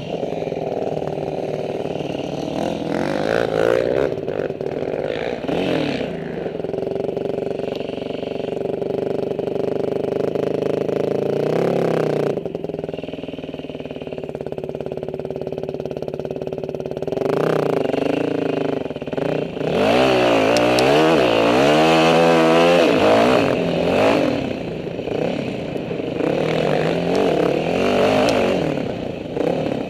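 Dirt bike engine running hard on a trail ride, its revs rising and falling with throttle and gear changes. About two-thirds of the way through there is a loud stretch of quick, repeated revving.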